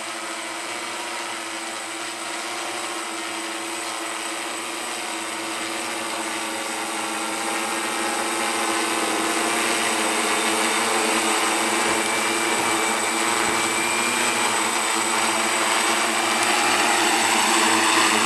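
Electric motors and propellers of an enRoute Zion AC940 crop-spraying multicopter, a steady buzzing hum as it comes down to land, growing louder as it nears. By the end it is on the ground with its propellers still spinning.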